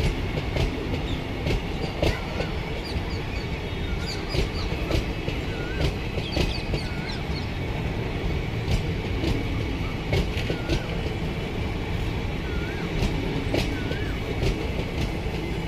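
Indian Railways sleeper-class passenger coaches running past close by: a steady rumble of wheels on rail with frequent clicks as they cross rail joints.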